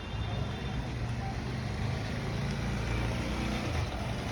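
A steady low rumble of outdoor background noise, with a few faint high chirps near the start.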